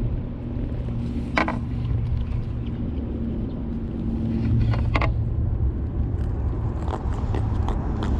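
Steady low rumble of road traffic on the bridge overhead, with a faint engine hum in the first half. Two short, sharp clicks, about a second and a half in and again about five seconds in.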